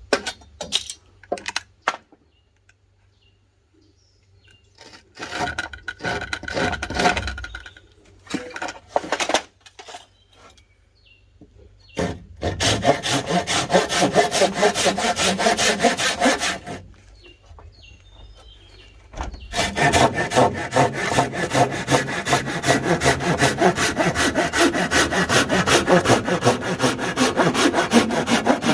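Hand saw cutting wood. Scattered short strokes and knocks come first, then from about twelve seconds in two long runs of fast, even sawing strokes, with a short pause between them.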